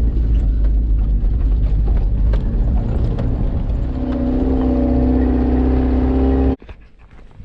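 Vehicle engine running under a heavy low rumble. A steady engine hum comes in about four seconds in, and the sound cuts off abruptly near the end.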